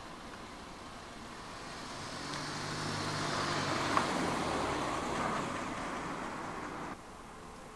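A car passing through the intersection: engine and tyre noise swell to a peak about four seconds in and then fade away, and the sound drops off abruptly near the end.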